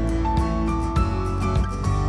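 Background music: plucked melodic notes over a bass line and a steady beat.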